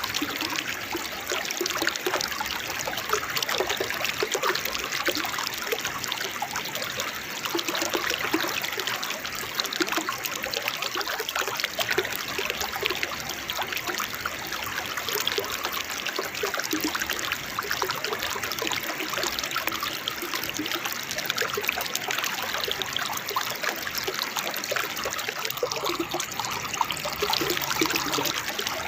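Small waterfall and fast-flowing clear water trickling and splashing steadily.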